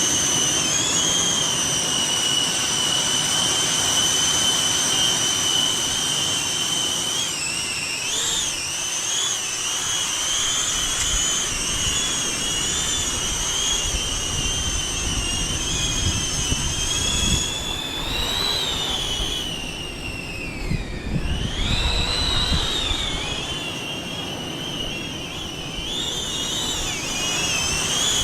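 Small caged FPV quadcopter (Xpert Mini O3) flying, its motors and propellers giving a steady high whine that wobbles in pitch with throttle changes. About two-thirds of the way through, the whine dips sharply and climbs back. Wind rumbles on the microphone through the middle stretch.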